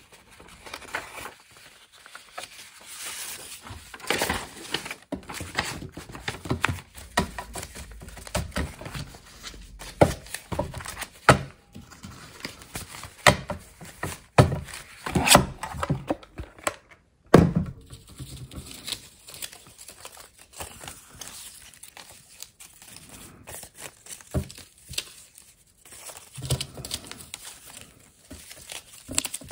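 Sheets of paper being handled, rustling and crinkling in irregular spurts, with several sharp knocks in between.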